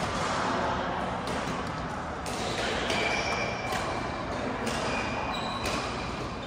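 Badminton play in a large echoing sports hall: sharp racket hits on the shuttlecock several times, short squeaks of court shoes on the floor, and the steady din of other games on nearby courts.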